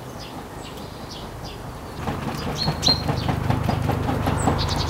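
Green plastic hand fan waved hard and fast over the firewood in a metal mangal, making quick rhythmic whooshing strokes about five a second from about two seconds in, to fan the fire back to life after it had gone out. Birds chirp in the background.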